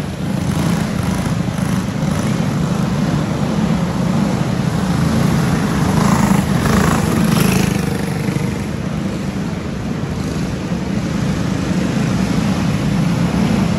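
Several racing go-kart engines running on a dirt oval inside an arena, a steady drone that swells about six to seven seconds in as a kart passes close.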